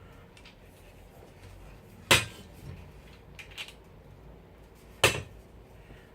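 Hard parts of a folding laptop table being handled during assembly: two sharp clinks of parts knocking together, about three seconds apart, with a few light clicks between.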